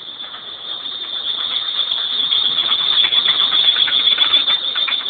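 Mazda MX-6 engine running with a steady high-pitched belt squeal and a rapid ticking clatter beneath it, both getting louder over the first few seconds. The ticking is the unexplained engine noise the owner is asking about; the belt squeal is a separate, known problem.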